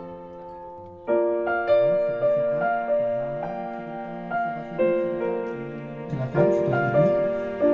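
Background music: a slow piano melody, a held chord fading away, then single notes struck one after another from about a second in.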